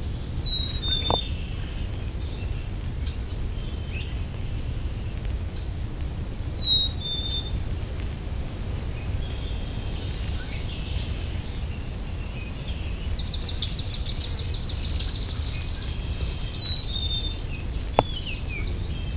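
Small songbirds calling: a short high falling chirp three times, several seconds apart, and a fast high trill lasting a few seconds in the second half, over a steady low rumble. A sharp click sounds near the end.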